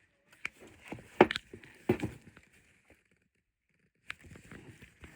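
Handling noises from a pair of suede ankle boots: a few sharp knocks and clicks with rustling, the loudest about one and two seconds in, then a short pause before another click and more rustling.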